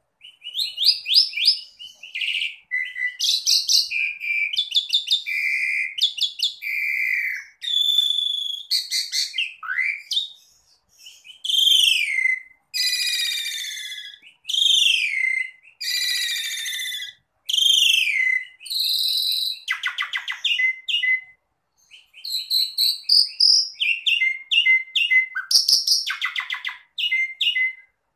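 Pied starling (jalak suren) singing a long, varied song: rapid chattering rattles, short chirps and clear whistles. Midway comes a string of whistles sliding down in pitch, about one a second, and the song breaks off briefly twice.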